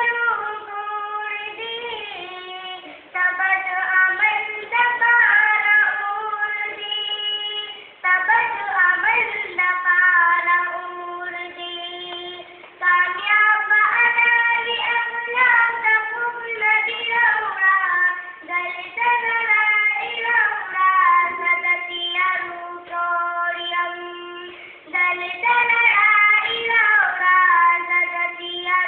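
A girl singing solo and unaccompanied, in long phrases of held notes that break for a breath every few seconds.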